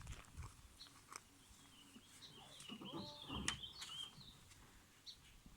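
Faint bird chirping, a short warbling phrase about two to four seconds in, over quiet outdoor ambience with a few light ticks.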